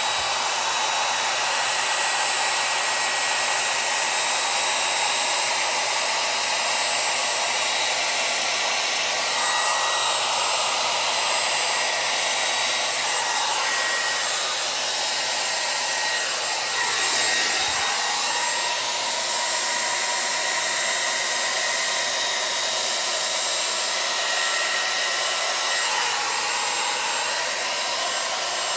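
Handheld hair dryer running steadily, a rushing blast of air over a motor whine, blowing wet acrylic paint across a canvas in a Dutch pour. Its sound shifts briefly a little past the middle.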